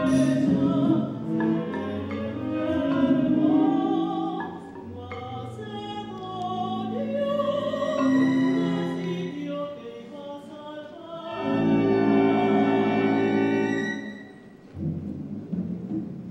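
Live orchestra and singing from a contemporary opera score, with sustained, dissonant-sounding held notes; a loud held chord swells about eleven seconds in and breaks off near the end.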